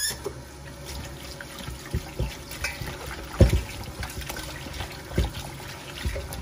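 Kitchen faucet turned on, water running from the tap into a stainless steel bowl of raw chicken wings as hands rub and rinse them under the stream. Several dull knocks come through, the loudest about three and a half seconds in.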